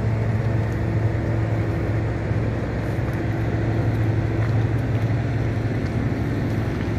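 Heavy construction machine's engine running steadily, a continuous low hum with no revving.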